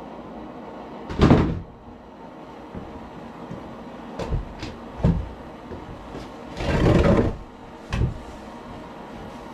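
Scattered knocks and thumps of wooden framing being handled and fitted together, with a longer scraping-like burst around seven seconds in.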